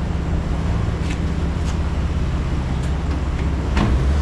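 A car running: a steady low drone, with a few faint clicks over it.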